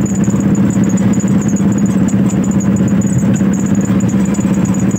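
A vehicle's engine running steadily with a fast, even pulsing hum, heard from inside the moving vehicle.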